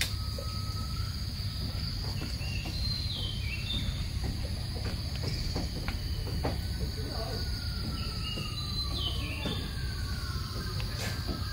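Steady high-pitched insect chorus of the tropical forest, with a bird giving short falling chirps, once about three seconds in and again around nine seconds.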